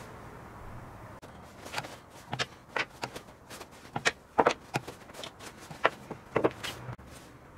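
Small brass calibration weights being set down on and lifted off a stainless-steel kitchen scale and the wooden bench beside it. More than a dozen light, irregular clicks and knocks, starting about two seconds in and running until shortly before the end.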